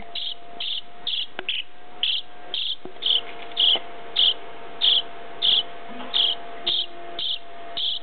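Nestling bird begging for food: short, high cheeps repeated about twice a second, with the bird hungry and gaping for chopped worm.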